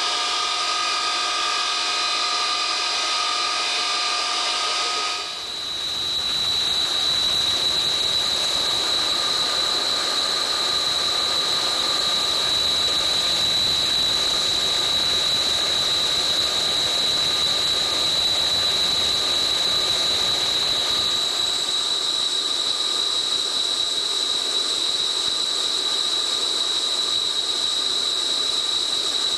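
KC-135A's Pratt & Whitney J57 turbojet engines running steadily during a ground maintenance run, heard from inside the aircraft: a high whine over a rushing hiss. About five seconds in the sound changes abruptly from several steady tones to one strong whine, and a second, higher whine joins later.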